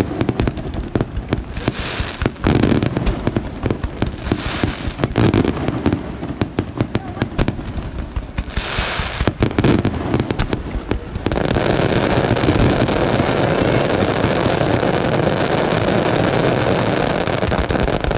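Aerial fireworks display: rapid bangs and crackles from many shells, merging about eleven seconds in into one dense, continuous, louder crackle.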